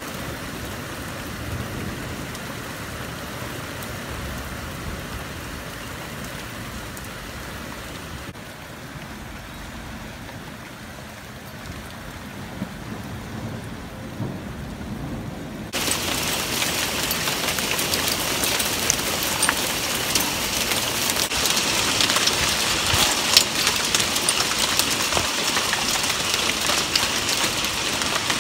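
Heavy rain falling steadily during a thunderstorm, with a low rumble of thunder in the first half. A little past halfway the rain sound jumps suddenly louder and sharper, with scattered ticks of drops striking a surface.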